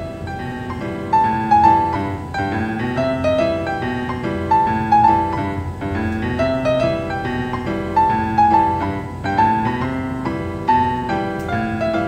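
Background piano music with a repeating melodic phrase.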